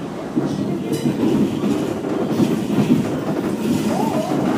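New York City Subway G train heard from inside the car as it runs along an elevated steel structure: a loud, steady rumble of wheels on rails, with a few knocks from the track.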